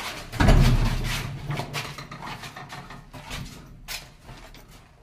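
Wooden plank door pulled open with a loud scraping rattle about half a second in, followed by a few smaller knocks and shuffles.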